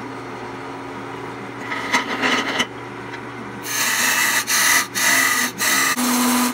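Wood lathe running with an old oak bowl blank spinning while a turning tool cuts into it. The motor hums steadily; a short cut comes about two seconds in, then a louder run of cutting from about halfway, broken by brief pauses.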